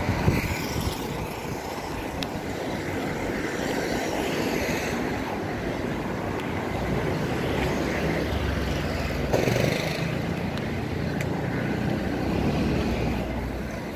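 City street traffic: cars and motorbikes passing, a steady wash of road noise with a low rumble, briefly louder about nine seconds in.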